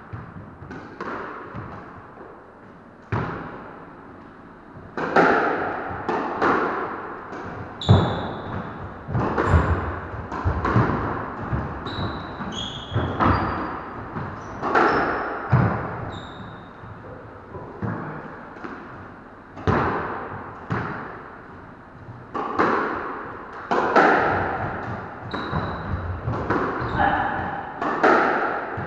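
Squash rally: the rubber ball struck by rackets and smacking off the court walls again and again, each hit echoing in the enclosed court, with short squeaks of shoes on the wooden floor. The hits start a few seconds in after a quieter stretch.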